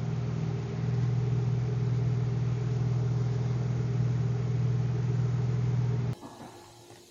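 KTM 790 Adventure's parallel-twin engine idling steadily; the sound cuts off abruptly about six seconds in.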